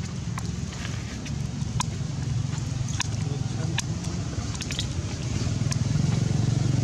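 A motor vehicle's engine running steadily as a low hum, growing louder about five and a half seconds in, with a few faint sharp clicks over it.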